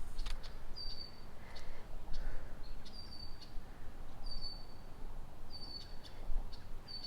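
A bird repeating a short, high, even-pitched call about every second and a half, over a steady low rumble of outdoor noise.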